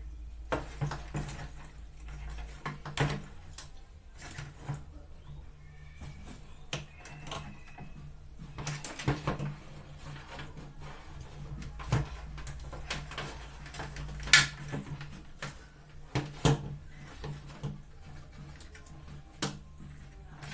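Irregular clicks, taps and knocks of hands and small tools handling and joining the wires of a washing-machine timer, over a steady low hum.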